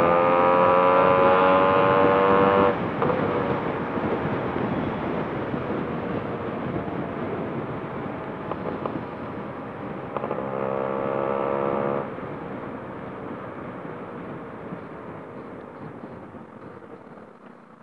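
Yamaha RX two-stroke motorcycle engine accelerating, its note rising steadily until the throttle is shut about three seconds in. A second short pull on the throttle follows around ten seconds in, then the bike coasts and the sound fades gradually.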